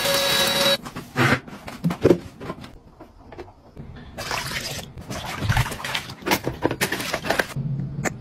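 A small cordless vacuum's motor running with a steady whine, then cutting off suddenly under a second in. A few clicks and knocks follow, then liquid being poured into a plastic bucket.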